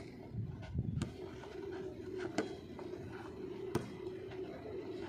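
Volleyball struck by hand during a rally: four sharp smacks about a second or so apart, over a faint steady background hum.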